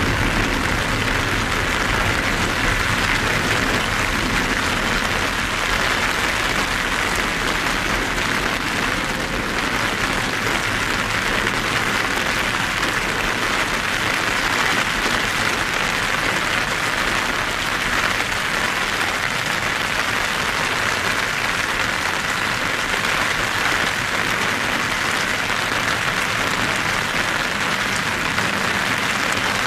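Heavy rain falling: a steady hiss of dense drops that holds without letup.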